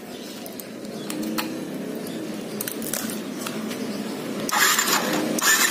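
Yamaha Byson's single-cylinder engine idling with a light, quick tek-tek clatter from the engine, a sound the owner finds abnormal and puts down to worn parts, perhaps along with a worn piston. A louder rush of noise comes in about four and a half seconds in.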